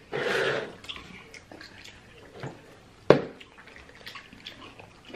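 A short rustling burst as cotton candy is pulled from a plastic tub, then a single sharp knock about three seconds in, with faint wet clicks from eating and handling sticky food around it.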